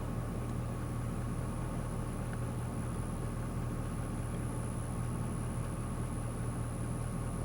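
Steady low background hum with a thin, faint high whine, unchanging throughout.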